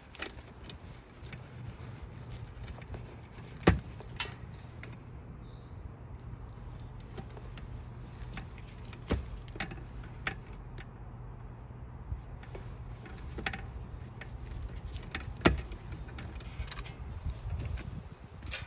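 Scattered sharp clicks and knocks of tools and metal parts being handled during electrical wiring work, over a steady low hum.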